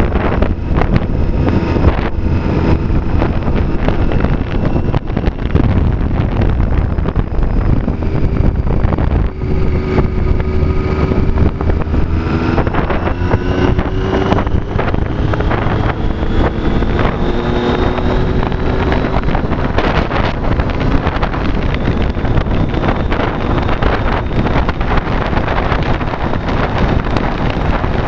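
Triumph Street Triple's inline three-cylinder engine running under way, its note rising slowly a few times as it pulls, mixed with heavy wind noise buffeting the helmet or bike-mounted microphone.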